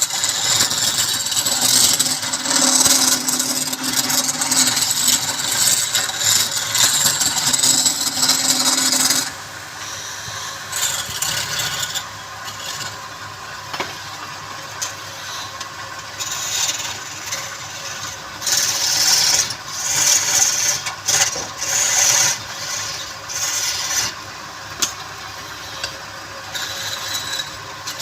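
Wood being worked on a spinning lathe: a continuous rasping scrape with a steady motor-like hum for about the first third, which stops abruptly. It is followed by shorter scraping strokes on and off.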